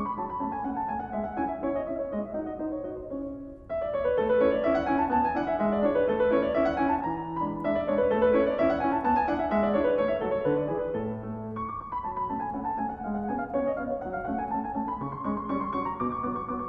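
Piano playing quick runs of notes that climb and fall over a lower accompaniment, growing louder and brighter for a stretch in the middle.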